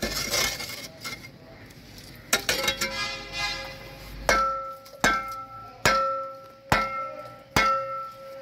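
Steel hoe blade hacking at roots and broken concrete: scraping at first, then a clang about two seconds in and five sharp metal strikes roughly once a second, each ringing briefly.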